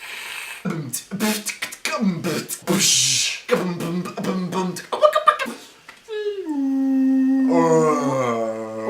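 A man's voice making strange mouth noises: hisses, clicks and short pitched squawks in a beatbox-like run. From about six seconds he slides down into a long held note, and a lower held part joins near the end.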